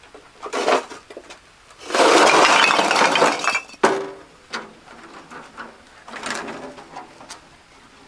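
Rough scraping and clattering of hand building work, loudest in a burst of about two seconds in the middle, followed by a sharp knock and a few shorter scrapes.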